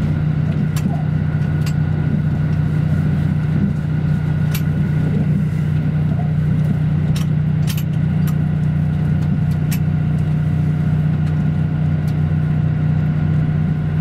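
KiHa 85 series diesel railcar running at speed, heard inside the passenger car: a steady low drone from its Cummins diesel engines with running noise, and sharp clicks every second or two.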